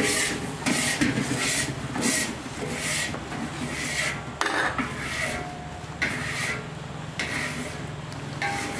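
Metal ladle scraping and stirring thick chili paste in a large metal wok: repeated rasping strokes, about one or two a second, coming further apart near the end.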